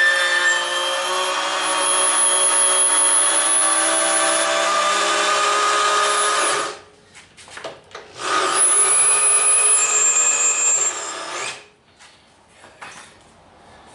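Power drill driving the milling machine's Z-axis crank to run the axis down, in two long runs with a short pause between them. The motor whine dips in pitch near the end of the second run.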